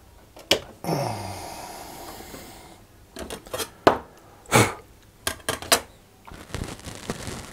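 Hand tools and copper wire handled on a workbench: a sharp click, then a clatter that rings and fades over about two seconds, a run of clicks and knocks, and a rasping scrape near the end.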